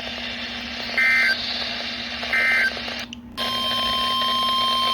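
Emergency Alert System digital data bursts on NOAA Weather Radio: two short warbling bursts about 1.4 s apart, the end of the three-burst end-of-message code that closes a tornado warning. After a brief dropout about three seconds in, a steady high alarm tone starts, the Weather Radio warning tone that opens the next alert.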